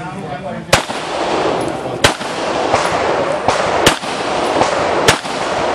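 Handgun fired several times at irregular intervals during a practical shooting course of fire: four loud, sharp shots about a second or more apart, with a couple of fainter shots between them.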